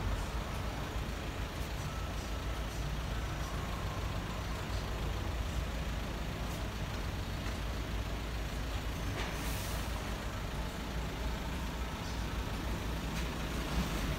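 Steady low rumble of a vehicle engine idling, with a short hiss about nine and a half seconds in.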